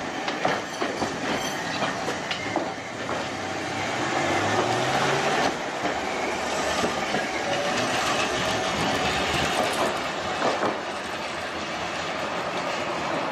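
Hankai Tramway streetcar No. 502 passing close by, its wheels clicking over the rail joints, with a rising whine about four seconds in as it gathers speed. It then runs on down the street with a steady rumble.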